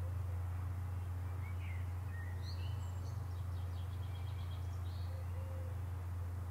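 Steady low drone of a car driving, heard from inside the cabin. Over it a bird sings: a few chirps, then a quick trill of repeated notes in the middle.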